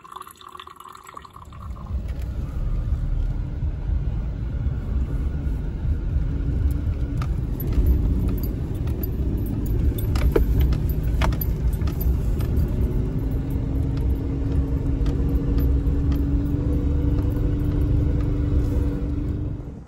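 Jeep Wrangler Unlimited driving on a snow-covered road, heard from inside the cabin: a steady low rumble of engine and tyres that comes in about two seconds in, with a few light rattles and clicks.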